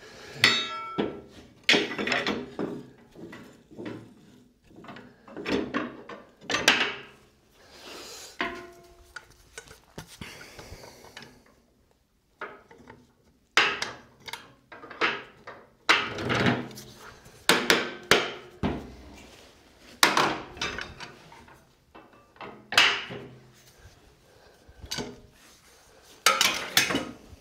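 Irregular knocks and clanks of metal and wood, some with a short metallic ring, as the steel lever and the wooden bowl blanks on a bowl coring machine are worked and handled by hand.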